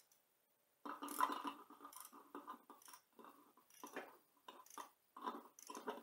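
Faint, irregular clicking and rattling of a socket ratchet wrench turning a bolt, starting about a second in.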